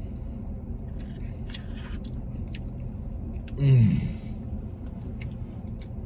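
A man eating a spoonful of Blizzard ice cream in a car: soft small mouth and spoon sounds, and about three and a half seconds in one short moan of enjoyment falling in pitch. A steady low hum of the car cabin runs underneath.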